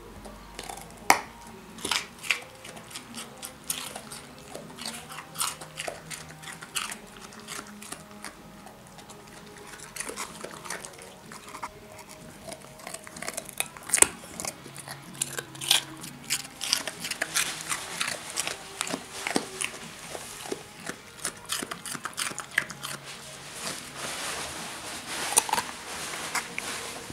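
A Dalmatian biting and chewing a chunk of carrot: a long, irregular run of sharp crunches.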